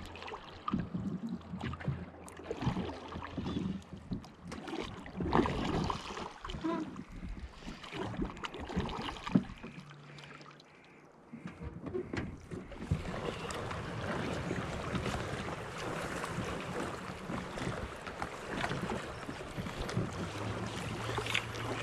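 A drift boat on the river: water moving around the hull and oars, with scattered knocks and some wind on the microphone.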